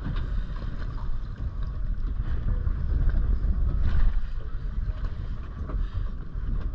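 Wind buffeting the microphone on a small boat at sea: a steady low rumble with a few faint light knocks.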